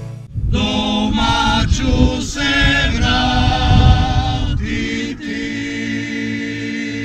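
A Dalmatian klapa, a male vocal group, singing a closing phrase in close harmony, the chord changing several times and then held steady on a final chord near the end.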